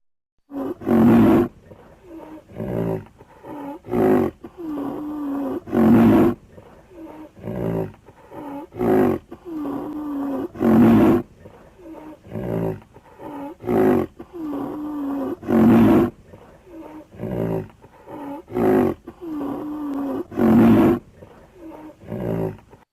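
Creature sound effect of an Arsinoitherium, mixed from rhinoceros, moose and bull calls. It is a repeating run of grunts and bellowing roars: a loud roar comes about every five seconds, with shorter grunts between.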